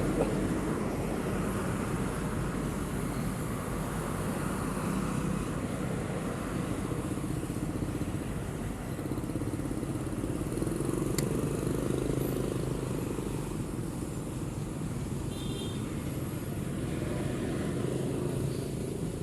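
Ducati Panigale V4's V4 engine running at steady moderate revs while the bike is ridden. The engine note climbs a little around the middle and then eases off again, under a steady hiss of road and wind noise.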